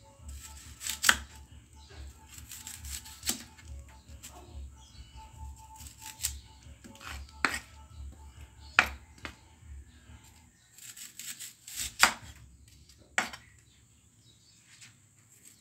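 Chef's knife slicing a red onion on a wooden cutting board: the blade knocks sharply on the board at uneven intervals of a second or two, with softer cuts in between.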